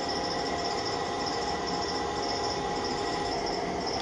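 Steady machine hum with fixed whining tones, and a high chirp repeating a few times a second.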